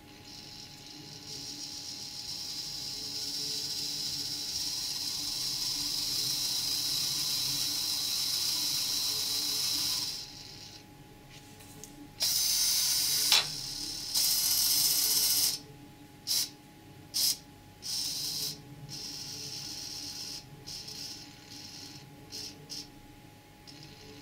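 Small electric motor and rubber belt drive of a spinning infrared range-sensor scanner whirring. It runs steadily for about ten seconds, growing louder, then stops. It follows with two longer runs and several short stop-start bursts.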